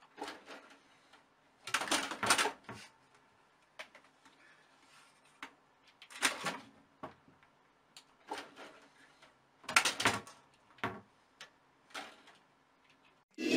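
A cat's claws and paws scrabbling and tapping against a plastic computer tower case, in several short bursts of scratching and knocks with quiet gaps between.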